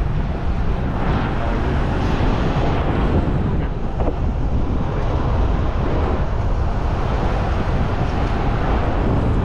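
Wind buffeting the microphone: a steady, loud low rumble and rush.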